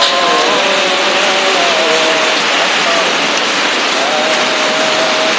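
Heavy rain and strong wind of a rain- and hailstorm, a steady dense roar. Voices rise over it in the first couple of seconds and again near the end.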